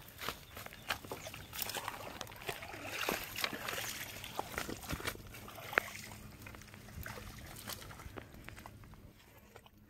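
Water splashing and sloshing as a big rohu is hauled by hand out of the shallows, mixed with irregular slaps and rustling as the fish thrashes and is carried onto the grassy bank; one sharp knock about six seconds in.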